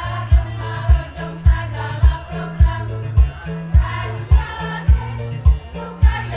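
Women's choir singing in parts over a recorded backing track with a steady drum beat and a moving bass line.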